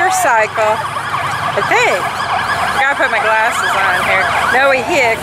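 Ambulance siren in fast rising-and-falling yelps, the sweeps overlapping one another, over road traffic.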